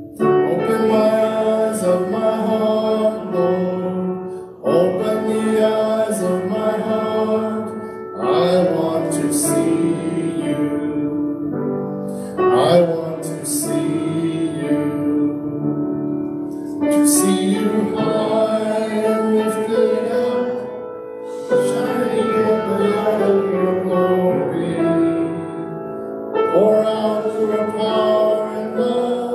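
Voices singing a slow worship song with piano accompaniment, in phrases of about four seconds with short breaks between them.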